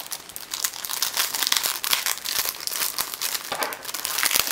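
Clear plastic bag crinkling and rustling as hands handle it and work it open around the phone case inside.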